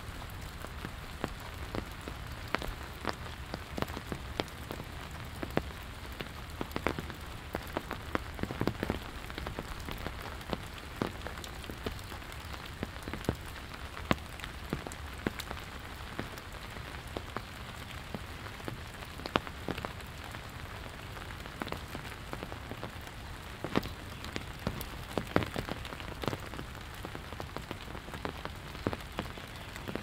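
Steady spring rain falling on the street and surroundings, an even hiss dotted with frequent, irregular sharp taps of drops landing close by.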